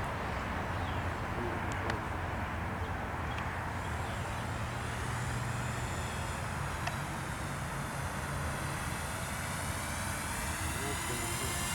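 Walkera F210 racing quadcopter in flight: a steady rush of propeller and wind noise, with a high-pitched motor whine that comes in about a third of the way through and rises and falls in pitch.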